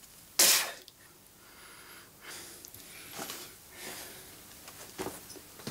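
A man snorts sharply through his nose once, about half a second in, then breathes faintly.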